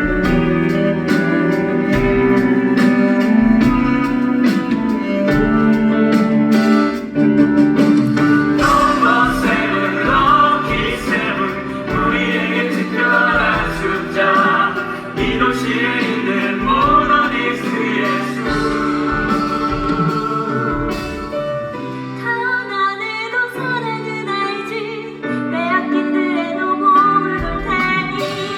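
Live stage-musical music: a band or small orchestra playing, with a performer singing over it from several seconds in.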